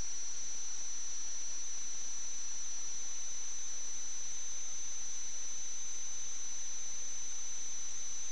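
Steady high-pitched electronic whine over constant hiss: electrical noise on the sewer inspection camera's recording, with no other sound.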